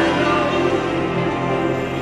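Music playing for the dance routine, with held, sustained chords.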